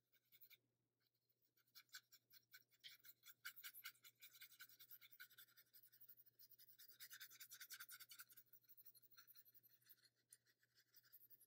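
Faint, quick scratchy strokes of a paintbrush dabbing and brushing watercolor paint onto textured watercolor paper, starting about two seconds in.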